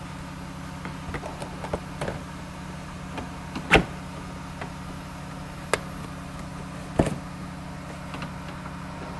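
Scattered clicks and knocks of hand tools on plastic bumper and splash-shield fasteners while small 8 mm screws are removed, the sharpest knock about a third of the way in and another near the end, over a steady low shop hum.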